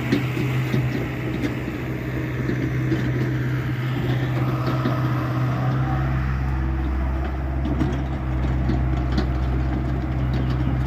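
Hyundai 85A excavator's diesel engine running steadily, its note deepening about six seconds in.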